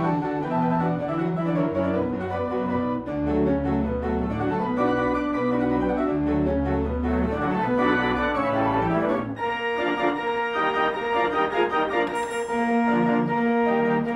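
Instrumental music with an organ-like keyboard sound: a moving line of short notes over a bass line, changing about nine seconds in to long held notes above shorter ones.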